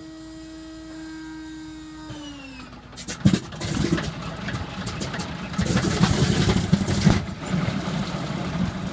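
Antonov An-2's nine-cylinder radial engine being started. The inertia starter's steady whine drops in pitch as it is clutched in to crank the engine, which fires with a loud bang about three seconds in. The engine then catches and runs unevenly at low speed.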